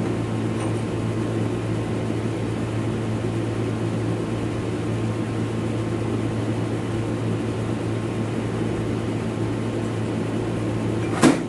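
A steady mechanical hum, with one sharp knock near the end.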